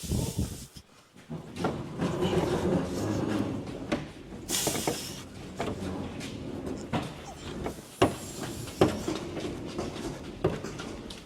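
A small trolley under a VW Beetle body shell rolling across a concrete floor: a continuous rumble and rattle of the wheels, with repeated knocks and clunks from the steel shell and two short scrapes, at the start and about four seconds in.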